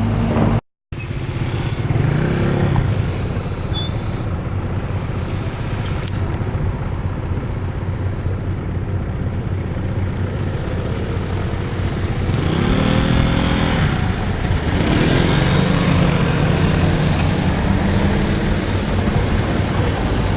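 Motor vehicle engines running, a steady hum, with an engine revving up and back down twice, about twelve and fifteen seconds in.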